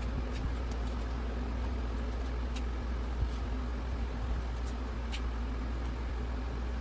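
Steady low hum of background machinery, with a few faint light clicks.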